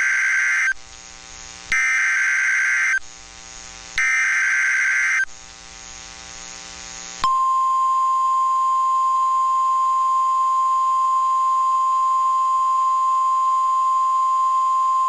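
NOAA Weather Radio Emergency Alert System (EAS) signals. First comes the SAME data header: three harsh, warbling two-tone modem-like bursts of about a second each, a second apart. About two seconds later the steady 1050 Hz warning alarm tone starts and holds on. Together they announce that a warning message is about to be broadcast.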